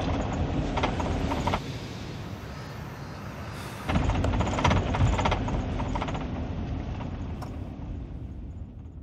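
Low rumble of a moving vehicle with intermittent clattering. It is louder at the start and again about four seconds in, then fades away near the end.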